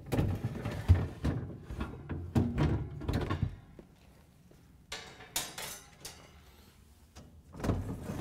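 Refrigerator freezer baskets, wire and plastic, being pulled out and lifted off their slides. There is a busy run of knocks and rattles over the first three and a half seconds, a short clatter about five seconds in, and more knocks near the end.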